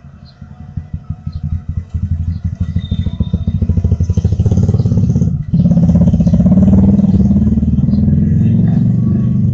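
Motorcycle engine approaching and getting louder over about five seconds, cutting out for a moment about five and a half seconds in, then running loud and steady close to the microphone.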